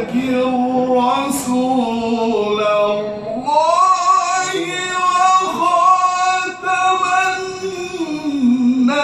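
A man reciting the Quran in melodic tajweed style, drawing out the words "walākin rasūl" (Al-Ahzab 33:40) in long, ornamented held notes. His voice climbs to a higher held note about three and a half seconds in and comes back down near the end.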